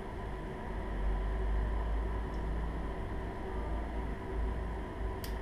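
Steady low rumble and hum of a room air conditioner running, with one sharp click about five seconds in.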